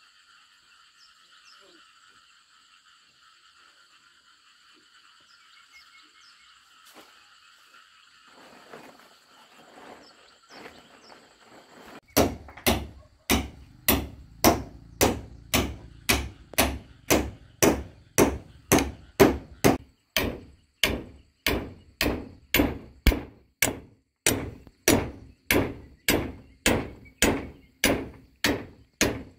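Insects trilling steadily. About twelve seconds in, a nail starts being driven into a wooden pole with a machete used as a hammer: sharp knocks at a steady two or so a second.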